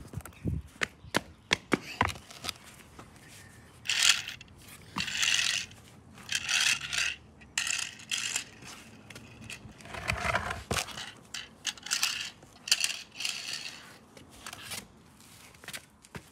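Small plastic toy car rolling over rough concrete paving slabs: short runs of gritty scraping, each lasting up to about a second, between scattered sharp clicks.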